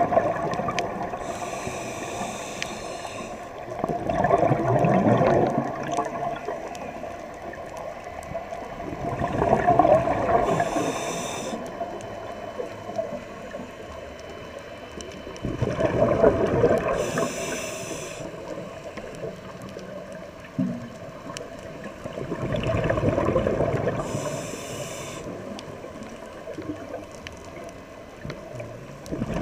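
Scuba diver breathing through a regulator: a short hiss on each inhale and a gush of bubbles on each exhale, four breaths about every six to seven seconds.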